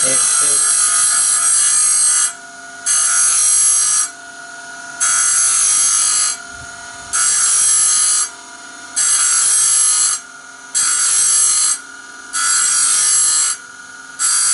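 Small power grinder cutting into the teeth of a steel band saw blade in repeated passes of about a second each, about eight in all, with the motor whining on between passes. Each pass grinds one tooth, sharpening a semi-blunt blade and reshaping the teeth.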